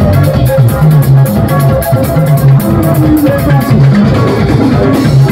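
Live band playing loud: electric guitars picking melodic lines over a repeating low bass line and a drum kit with busy cymbal ticks.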